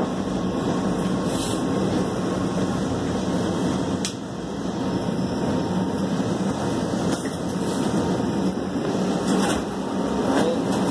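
LA Metro Red Line subway car, heard from inside the cabin, slowing to a stop at a platform: a steady rumble with a low ventilation hum and a sharp click about four seconds in. A few short knocks near the end as the doors open.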